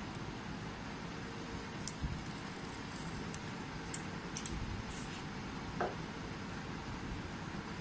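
Steady background hiss and hum with a few light clicks scattered through, and one slightly stronger knock about six seconds in.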